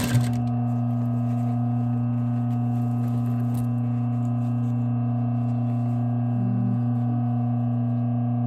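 Steady electric hum from the motor of an industrial post-bed sewing machine: one even low tone with no stitching rhythm.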